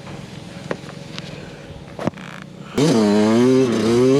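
Dirt bike engine running quietly, a sharp click about two seconds in, then the engine is revved loudly from near three seconds, its pitch rising and dipping.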